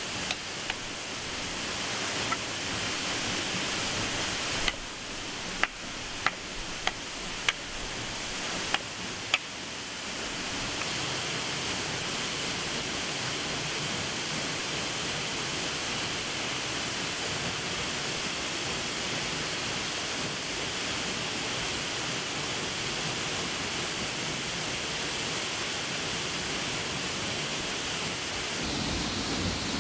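Steady rushing of falling water from a waterfall. It grows a little fuller about a third of the way in, and before that a string of sharp clicks or snaps sounds over it.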